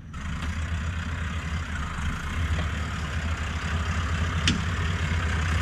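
Toyota LandCruiser 79 series off-roader's engine running at low revs as it crawls over rocks, a steady low rumble growing slowly louder as it comes closer. One short sharp click about four and a half seconds in.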